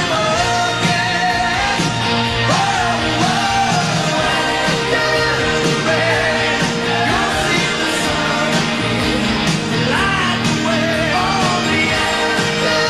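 Melodic hard rock song with electric guitars, bass and drums, and sung vocals with vibrato over them.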